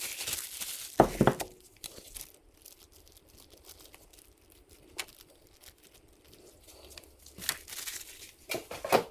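Rustling, then scattered knocks and clicks as pistons and pins are handled and set down on the bench: a sharp knock about a second in, a click near five seconds, and more knocks near the end.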